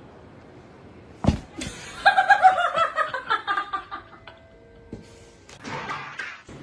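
A knock about a second in, then a person laughing in a quick run of high 'ha-ha-ha' notes that fall in pitch for about two seconds.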